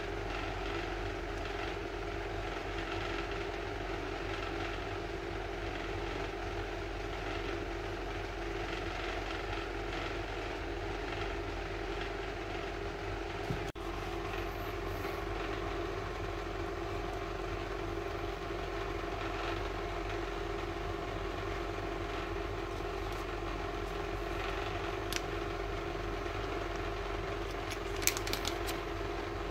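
A steady mechanical hum, even throughout, with a few small clicks.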